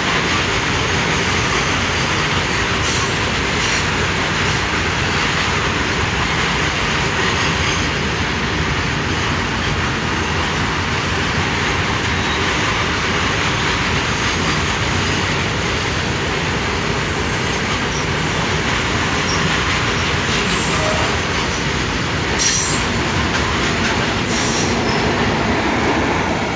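Goods train's open-top steel box wagons rolling past: a steady noise of steel wheels on rail, with occasional knocks and one louder clank about 22 seconds in.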